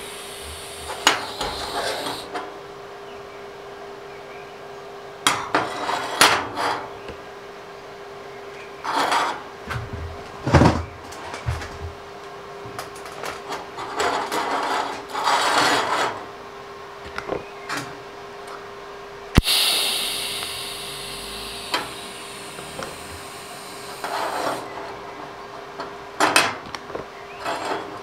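Metal tube being shifted and set on a steel welding table: scrapes and light metal clinks over a steady hum. About two-thirds of the way in, a TIG arc is struck with a sharp crack and hisses for about two seconds, as for a tack weld.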